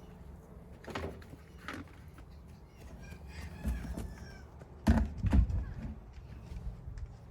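Chickens clucking, with a few sharp knocks or bumps, the loudest about five seconds in.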